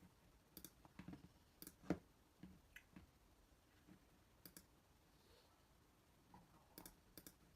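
A handful of faint, sharp clicks and taps spaced irregularly over quiet room tone, the loudest about two seconds in and a close pair near the end.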